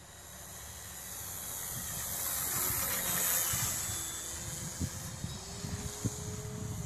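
RC model airplane flying past, its motor and propeller a hissing drone that swells to its loudest about three seconds in as it passes closest, then fades.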